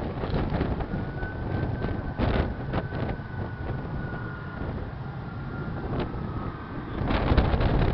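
Wind buffeting the microphone in gusts, with the faint high steady whine of an approaching jet airliner's engines, heard from about a second in until near the end.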